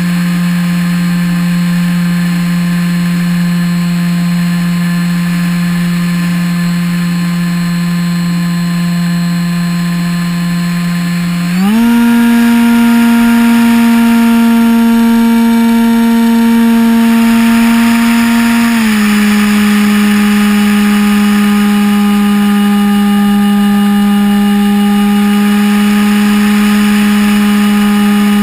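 Multiplex EasyStar 2's electric motor and propeller whining steadily in flight. About twelve seconds in the throttle goes up and the pitch jumps higher as the plane climbs, then about seven seconds later it drops back a little.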